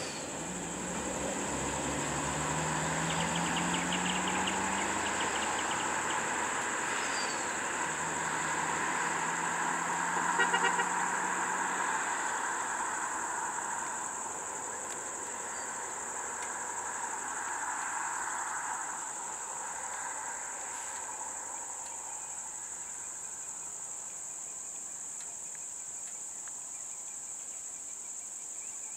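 High, steady chorus of insects over a vehicle engine running on the road, whose pitch rises twice before it fades about twelve seconds in. There is a brief louder sound about ten seconds in, then only the insects remain.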